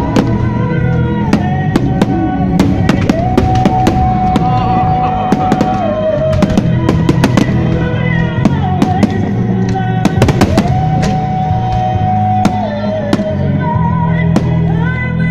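Loud music with drums and long held melody notes, the soundtrack of a pyromusical, with many sharp bangs and crackles of aerial fireworks bursting through it.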